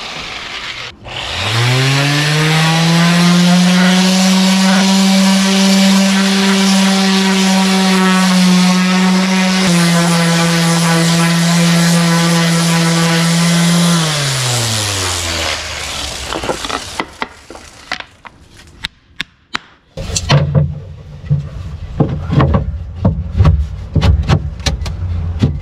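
An electric orbital sander starts up, runs at a steady speed on a plywood piece for about thirteen seconds, dipping slightly in pitch partway through, then winds down. Near the end come scattered wooden knocks and scrapes as the plywood piece is pushed into place by hand.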